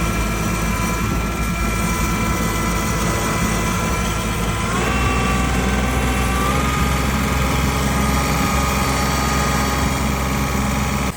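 A vehicle engine running steadily under load, stepping up in speed about five seconds in and again a little later, as a truck and trailer stuck in snow are worked free.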